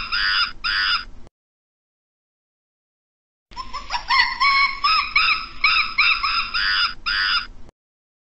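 A monkey calling: a rapid series of high, rising-and-falling chirping calls, about three a second. They stop abruptly about a second in, leaving dead silence, then start again about halfway and cut off near the end.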